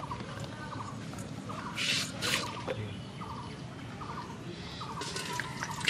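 A bird chirping over and over in short notes, roughly two a second, over a steady low hiss.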